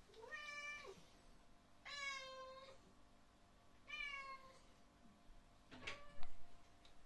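British Shorthair cat meowing four times, drawn-out meows begging for food. The last is short and comes with a low bump.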